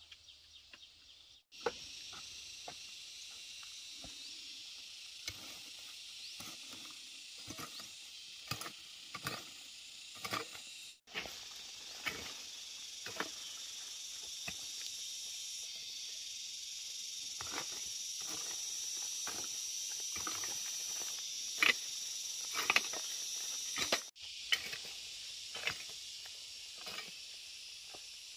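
Steady high-pitched insect chorus, like crickets or cicadas, with irregular short knocks and scrapes scattered through it, several louder ones a little past the middle.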